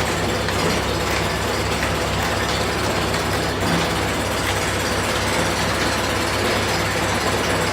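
Four-sided planer running steadily: a constant low hum under an even whir, with no change in load.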